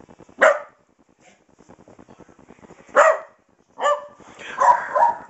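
Small dachshund barking in play: one bark, a second about two and a half seconds later, then a quicker run of barks near the end.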